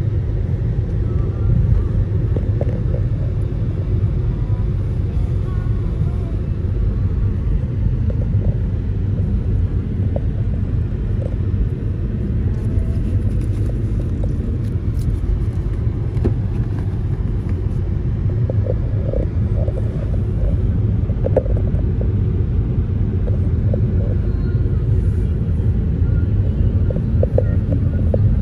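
Steady low rumble of road and engine noise inside a moving car's cabin, with no clear breaks.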